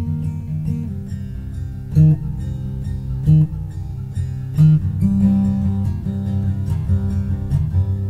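Acoustic guitar strummed in an instrumental passage between sung lines, with a few louder accented notes about two, three and a half, and nearly five seconds in.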